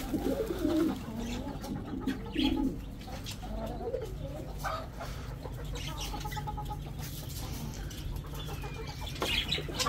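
Domestic pigeons cooing, several overlapping coos mostly in the first three seconds, with a few chicken clucks among them, over a steady low hum.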